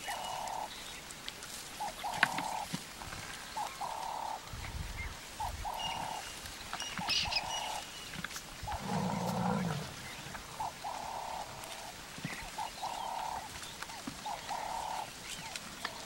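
An animal call repeating steadily: a short mid-pitched note about every one and a half to two seconds. About nine seconds in comes one longer, louder sound that reaches much lower.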